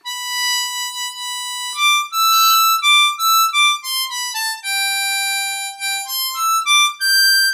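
Ten-hole diatonic blues harmonica played high on the harp: a phrase of separate, steady notes without bends, a few held long and others quick, ending on a held high note.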